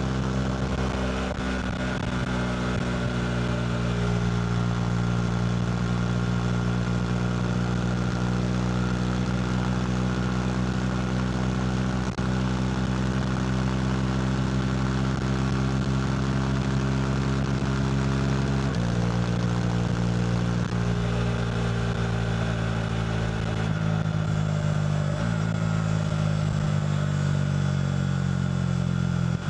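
KTM RC 390's single-cylinder engine running through a Two Brothers slip-on exhaust at fairly steady revs, over a steady rush of noise. The engine pitch jumps suddenly about two-thirds of the way in, and rises and drops again in steps near the end.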